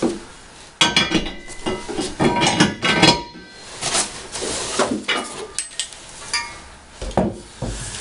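Sunex 3-ton steel jack stands being handled and set down among cardboard packing: irregular metallic clanks and clinks, some briefly ringing, mixed with cardboard scraping and rustling.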